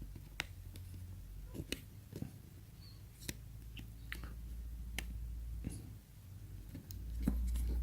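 Sharp, scattered clicks and snaps as an iPhone 6 display assembly is pried away from its frame by fingernail, the screen's edge clips releasing one by one, over a steady low hum.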